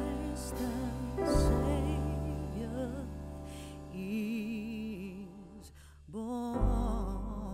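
Background music: a slow song whose held melody notes waver with vibrato over a steady bass, dipping briefly about six seconds in before picking up again.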